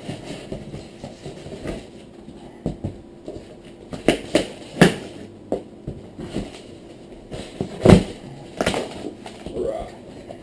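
Cardboard shipping box being cut and torn open with a small knife: irregular crackles, rips and sharp knocks as the stiff cardboard flaps are bent and pulled apart, the loudest about eight seconds in.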